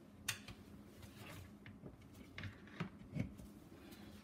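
A few scattered light clicks and knocks from handling a glass bowl and kitchen things on the counter, over a faint steady low hum.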